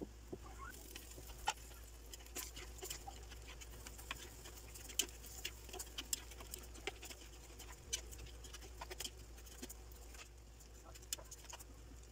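Shrimp in a thick sauce simmering in a frying pan, the sauce popping in many small irregular clicks while it is stirred with two utensils, over a low steady hum.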